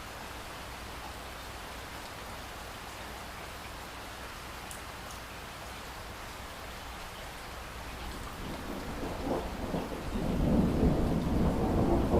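Steady pouring rain, with a low rumble of thunder building from about two-thirds of the way through and loudest near the end.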